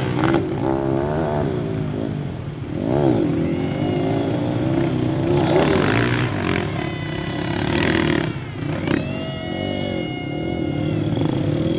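Kawasaki KLX110 pit bike's small single-cylinder four-stroke engine revving as it is ridden round a dirt track, its pitch rising and falling over and over with the throttle.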